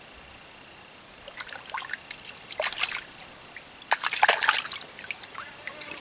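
Shallow stream water trickling, with irregular splashes as a plucked bird is rinsed and rubbed by hand in it. The loudest splashing comes about four seconds in.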